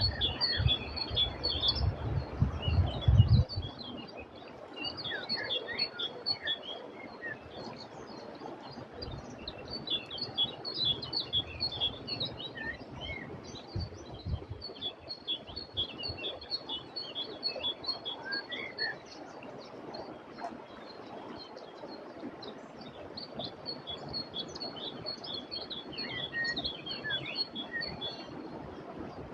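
Many small songbirds chirping and twittering in quick, high calls, over the steady hiss of a flowing river. A low rumble sits under them for the first three seconds or so.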